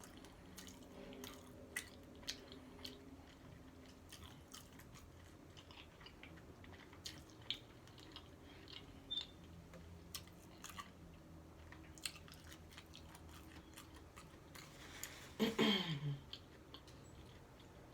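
Close-up chewing and biting of a taco, with soft crunches and wet mouth clicks scattered irregularly. About fifteen seconds in comes a brief, louder sound that falls in pitch.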